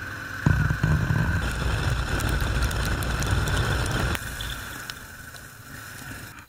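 Motorcycle riding heard from a camera mounted on the bike: engine running under heavy wind rush on the microphone, which comes in suddenly about half a second in. It drops to a quieter run after about four seconds.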